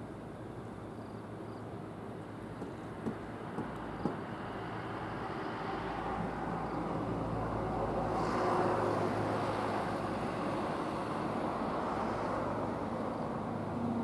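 Fishing boat's engine running with a steady low hum as the boat passes close by, growing louder to a peak just past the middle. A few light clicks about three to four seconds in.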